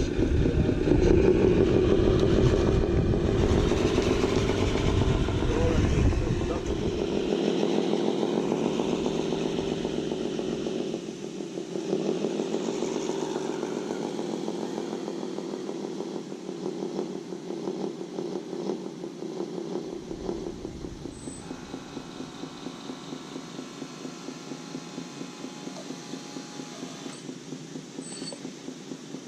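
Radio-controlled truck's motor and gears whining as it drives, loud at first and growing fainter.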